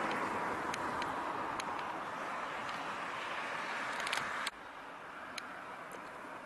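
Rushing road noise from a passing car that slowly fades, cut off abruptly about four and a half seconds in, with a few faint clicks scattered through.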